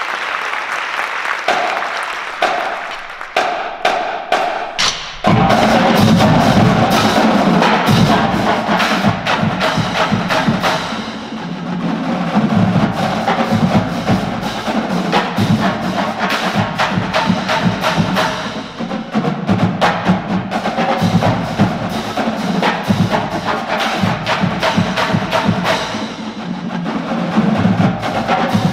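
A marching drumline playing, starting over the tail of applause with sparse, sharp stick strokes and a few pitched drum hits. About five seconds in, the full line comes in loud and dense, with deep bass drums under rapid snare strokes.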